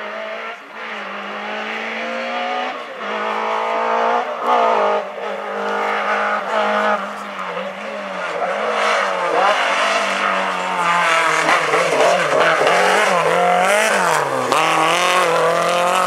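Rally car engine revving hard as the car comes closer, pitch climbing and dropping sharply again and again as it shifts up through the gears. Around two thirds of the way in, the revs dip and jump several times before it accelerates hard again, growing louder as it passes.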